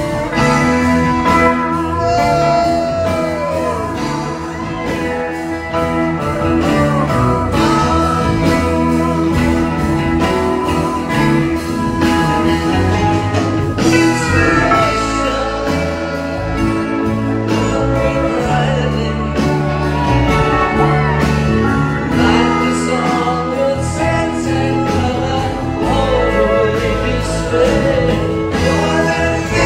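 A band playing live on stage, guitars prominent, with singing at times.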